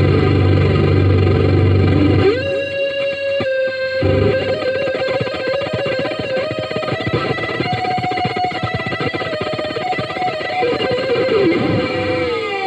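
Electric guitar played through a Marshall CODE 50 modelling amp with distortion and effects: a low distorted chord rings, then about two seconds in a single lead note is held and bent with vibrato, sliding down in pitch near the end.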